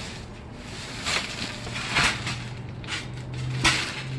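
Rustling and shuffling of items being pulled out of boxes, with a few short louder scrapes, over a low steady hum.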